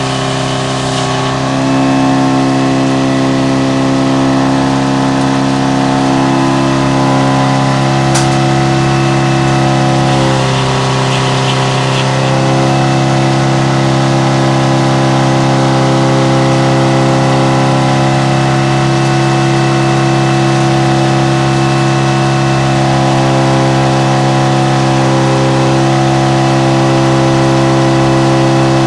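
Frick double zero circle sawmill running steadily: a loud, even mechanical drone made of several held tones that shift slightly a couple of times.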